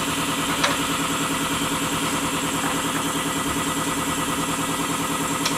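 An engine running steadily at idle, a fast even throb with a steady hum. Two light clicks come about half a second in and near the end.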